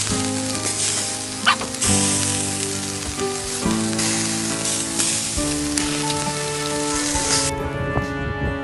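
Sauce-basted chicken skewers sizzling on a wire grill over hot charcoal, a steady sizzle, with background music of held notes. The sizzle drops away near the end, leaving the music.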